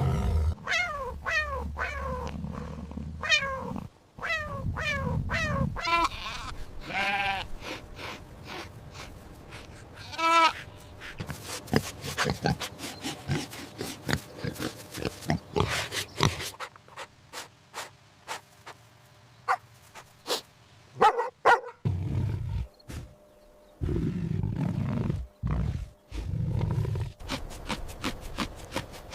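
A big cat, lion or tiger, roaring and growling, mixed with a series of short falling calls in the first few seconds and a run of sharp clicks in the middle.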